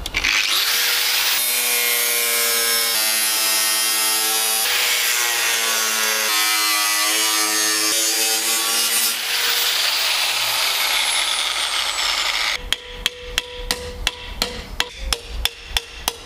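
An angle grinder spins up and cuts through thin sheet metal, a steady high whine over a grinding hiss that shifts in pitch as the disc bites, for about twelve seconds. Then a hammer strikes metal about three times a second, bending the sheet over in a vice.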